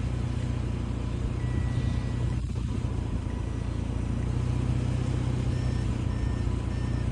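A car engine idling steadily, the donor car running to charge a dead battery through jumper cables. Faint short electronic beeps repeat now and then.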